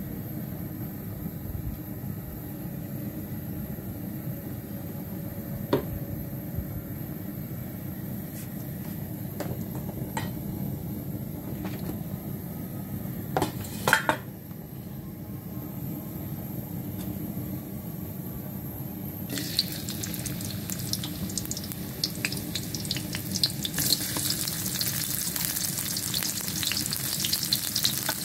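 A steady low rumble under a few sharp metal knocks on a stainless steel wok. About two-thirds of the way through, hot cooking oil bursts into sizzling as sliced shallots, garlic and lemongrass go in, and the sizzle grows louder a few seconds later.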